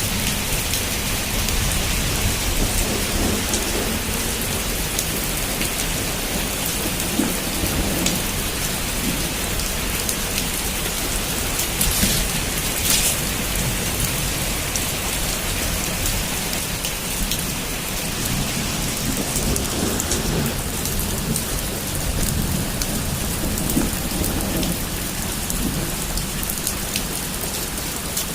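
Heavy rain pouring steadily on a rooftop, with a few sharper drop strikes and a low rumble underneath that eases off near the end.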